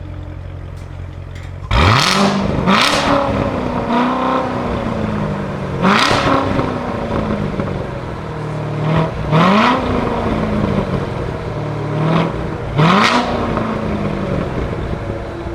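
Car engine idling, then blipped about seven times in quick succession, the revs rising sharply and dropping back to idle each time, starting about two seconds in.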